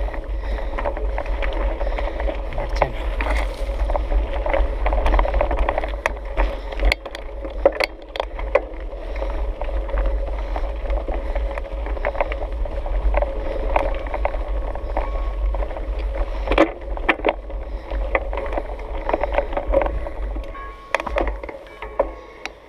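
Mountain bike ridden over a rocky gravel trail and heard through a GoPro: a steady low rumble with the crunch of the tyres, and scattered sharp knocks and rattles as the bike and camera go over bumps. It quietens near the end.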